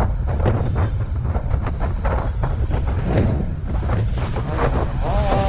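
Wind buffeting the camera microphone of a rider moving at speed on an electric scooter, over a steady low rumble of road and traffic noise. A short steady tone sounds near the end.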